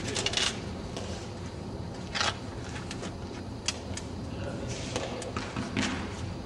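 An Eton Fives rally: the hard ball is struck by gloved hands and smacks off the concrete court walls, a series of irregularly spaced sharp hits with shoes scuffing between them. The loudest hit comes about two seconds in.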